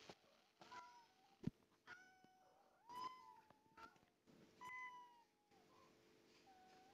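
A cat meowing faintly several times, short calls that drop a little in pitch, with a single sharp click about one and a half seconds in.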